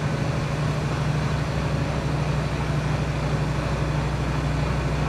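Biogas-fuelled Iveco truck's engine running steadily, a constant low hum with no change in pitch.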